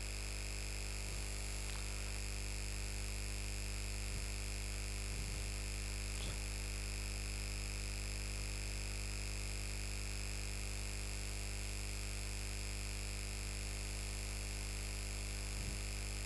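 Steady electrical hum and hiss made up of several fixed tones, with a few faint soft strokes of a marker drawing lines on a whiteboard.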